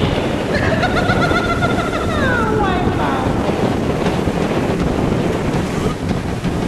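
Wind buffeting the microphone over the roar of breaking surf. About half a second in, a high-pitched shriek rises over it for roughly two and a half seconds and slides down in pitch at the end.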